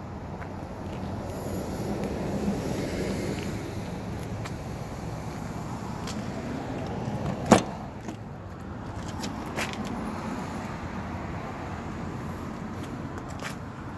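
Steady vehicle and traffic noise with a faint low hum, broken by one sharp click about halfway through as the van's front door is unlatched, and two fainter clicks later.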